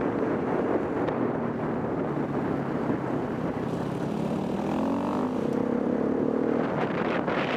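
Motorcycle engine running under heavy wind buffeting on the microphone, its note rising as the bike accelerates about five seconds in.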